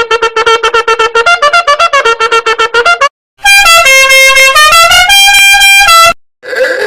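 Goofy meme sound effects played back to back: a rapid stuttering run of short pitched notes stepping through a little tune, then a loud horn-like melody of held notes, and a new short pitched effect starting near the end.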